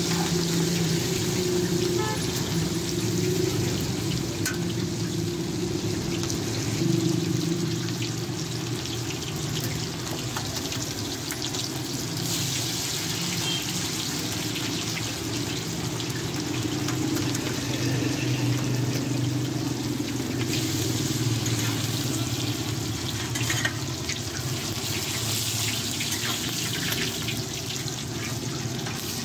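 Chapli kebabs frying in a wide pan of hot oil: a steady sizzle that swells louder at times, with a low steady hum underneath.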